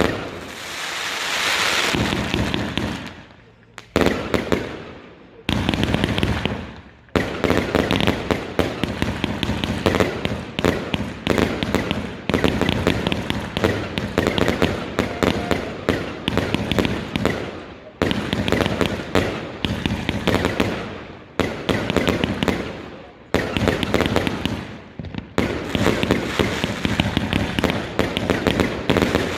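Fireworks going off: a hissing rush at first, then a few separate bangs, then a dense run of rapid cracks and bangs that goes on to the end.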